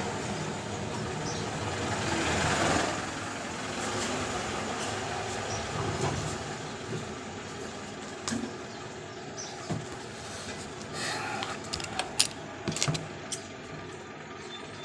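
Background rumble that swells about two to three seconds in and then eases, with light clicks and rustles near the end from a book's paper and thread being handled during hand stitching.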